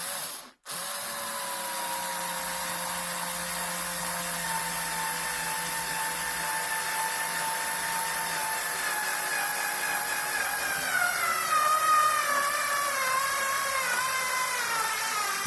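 Electric drill driving a screw into wood: a brief burst, then a long steady run whose whine drops in pitch over the last few seconds as the screw goes in.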